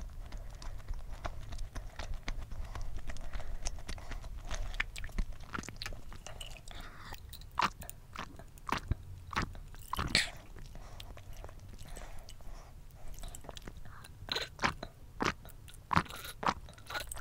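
Close-miked mouth sounds: wet chewing and mouth clicks, then a run of gulps and swallows from about halfway in, while she drinks a mango soft drink from a glass.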